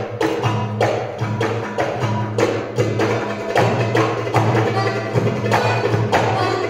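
Belly dance music: a quick, even percussion beat over sustained low notes.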